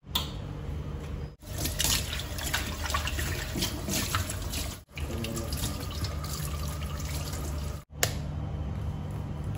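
Kitchen tap water running into a stainless steel sink while hands are rinsed under it, cut off abruptly a few times.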